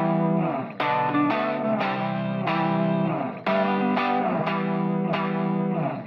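Background music on guitar: plucked chords struck again and again.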